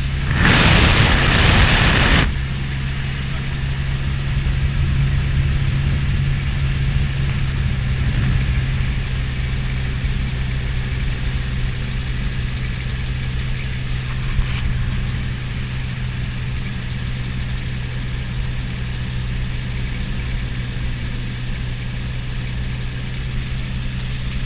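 Gyroplane's pusher engine and propeller droning steadily in cruise flight. A loud rushing noise swells for about two seconds just after the start, then the steady drone carries on.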